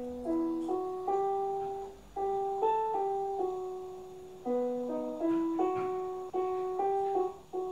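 A slow piano melody between spoken verses, notes sounding two at a time and fading away, in short phrases about every two seconds.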